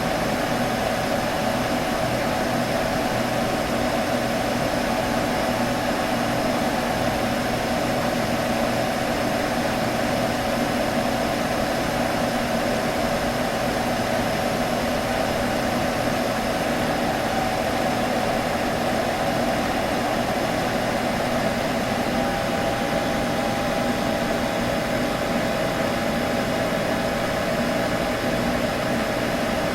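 A computer giving off a steady buzz: a constant hum with a strong mid-pitched tone over a hiss, holding level throughout.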